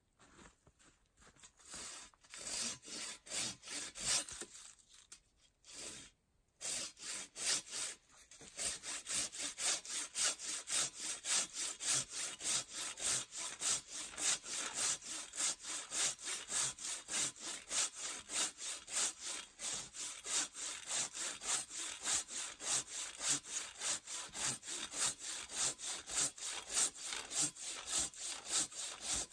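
Hand saw cutting through wood: a few short, uneven strokes, a brief stop, then a steady run of quick back-and-forth strokes for the rest of the time.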